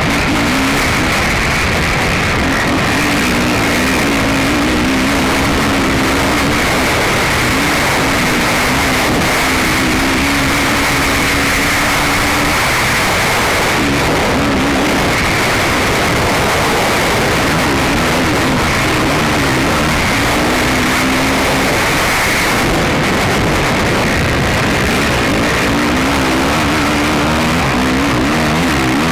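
Racing ATV engine heard from an on-board camera, revving up and down over and over as the throttle opens and closes, under a constant loud rush of noise.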